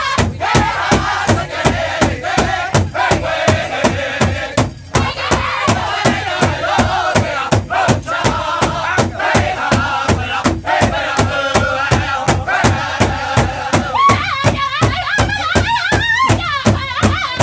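Powwow drum group: several singers beat a large shared bass drum in a steady, fast pulse of about three strokes a second while singing together in high, loud, wavering voices. About three-quarters of the way through, the singing climbs higher.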